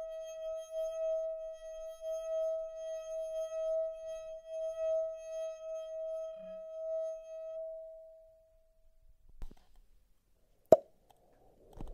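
A sustained ringing tone with overtones, like a singing bowl, wavering gently in loudness and fading away about nine seconds in. A single sharp click near the end.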